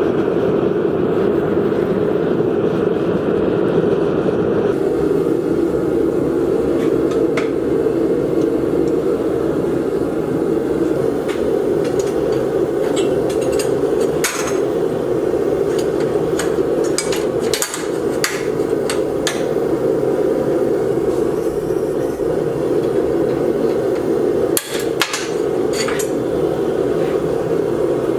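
Irregular sharp taps of a hammer on metal, over a steady loud rushing noise.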